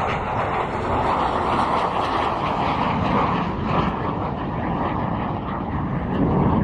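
Jet aircraft flying past, a loud, steady rush of jet engine noise.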